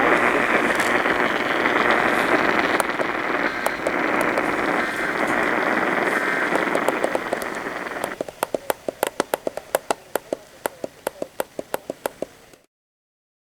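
A loud, steady hiss of static-like noise cuts off suddenly about eight seconds in. It gives way to a rapid, regular clicking, about four or five clicks a second, which stops in a brief dropout to silence near the end.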